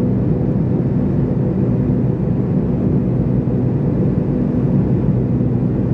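Steady cabin drone of a McDonnell Douglas MD-83 jet airliner in flight, heard from inside the cabin. Its tail-mounted turbofan engines give an even rumble with a low, constant hum.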